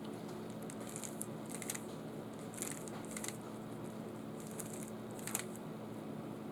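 Rubik's Cube being turned by hand: a scattered series of short plastic clicks in small clusters, the loudest near the end, over a steady low hum.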